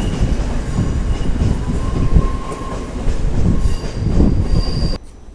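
Train passing close by: a heavy rumble with high, steady wheel squeal, stopping abruptly about five seconds in.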